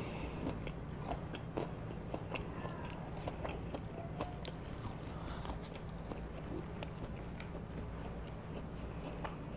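Close-miked chewing of a mouthful of McDonald's chicken nugget and fries, with small wet mouth clicks and soft crunches scattered irregularly throughout.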